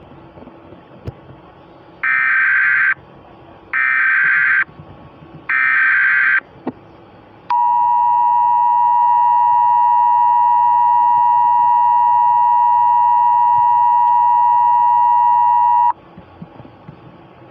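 Emergency Alert System tones: three short buzzing data bursts of the SAME header, about a second each, then the steady two-tone EAS attention signal held for about eight seconds before it cuts off suddenly.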